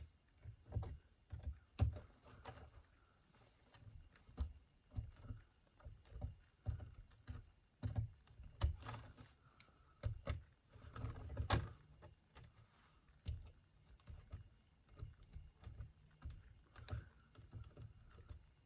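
Linesman's pliers gripping and twisting bare copper ground wires together, with irregular small clicks and knocks from the tool and the wires being handled.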